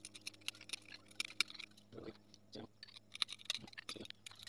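A small piece of glass being chipped and scraped at its edge by hand: a quick, irregular run of fine, crisp clicks and gritty scratches, with a few duller taps.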